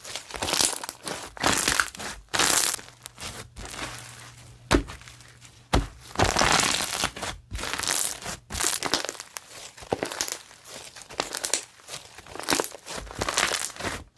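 Crunchy slime being squeezed and pressed by hand, giving repeated crackling, crunching bursts with a couple of sharper taps about five and six seconds in.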